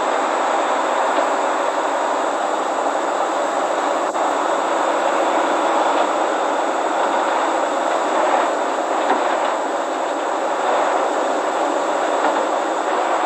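Brøyt X42 wheeled excavator running as it drives up the ramps onto a low-loader trailer: a steady, noisy machine drone with no let-up.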